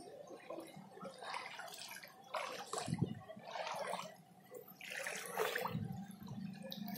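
Someone wading through shin-deep floodwater, each step splashing and sloshing, roughly once a second.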